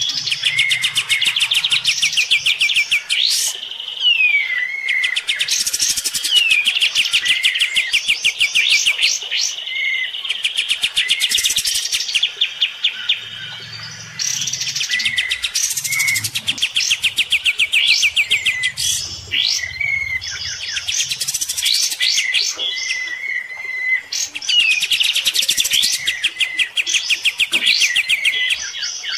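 Kapas tembak songbird singing hard in rapid trilled phrases. Each phrase is a fast run of high repeated notes over a lower chirping note, lasting a few seconds, with short pauses between phrases. It is the fierce challenge song a kapas tembak gives when fighting another kapas tembak by song.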